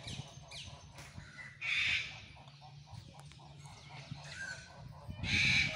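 Two short, harsh screeching animal calls, one about a second and a half in and another near the end, each loud against a faint background.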